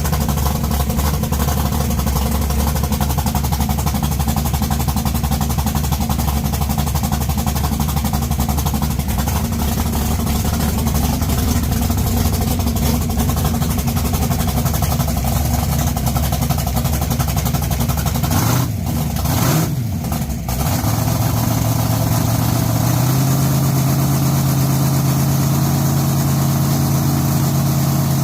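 1969 Camaro drag car's engine running at idle, blipped twice a little past halfway. It then settles into a steadier idle that steps up once more in pitch.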